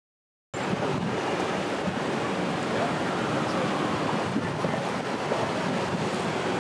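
After silence, outdoor sound cuts in suddenly about half a second in: a steady rushing noise of flowing floodwater mixed with wind on the microphone.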